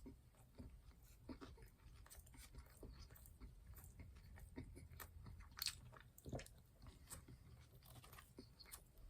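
Faint, close-up chewing of crispy fried battered food, with scattered small crunches and wet mouth clicks; one louder crunch comes a little past the middle.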